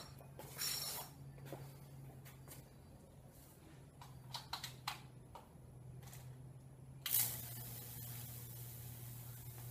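High-voltage electricity from a transformer arcing across wet wood to burn a Lichtenberg figure: a sudden steady hiss that starts about seven seconds in, over a low hum. Before it come a few clicks and knocks as the leads and board are handled.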